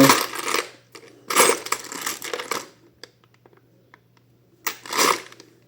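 Loose metal screws and bolts clinking and rattling as a hand rummages through them, in several bursts with short quiet gaps between.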